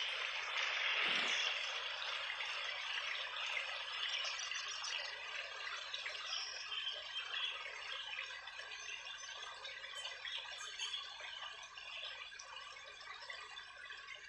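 Rushing water of a stream, a steady hiss that slowly fades.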